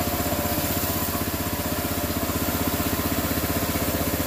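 Gasoline pressure washer's small engine running steadily with an even, fast pulse, under the hiss of the high-pressure jet from the spray wand hitting concrete. It is running smoothly, its water pump newly aligned to the engine, which the owner says makes it much quieter.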